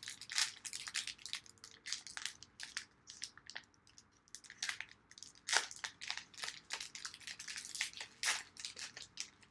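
A trading-card pack wrapper being opened and handled, crinkling in many short, irregular crackles and rustles.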